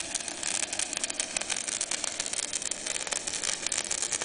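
Stick (MMA) welding arc crackling and hissing steadily with a 3.25 mm coated electrode, powered by a Dedra DESI200 inverter welder whose current is being turned down during the weld.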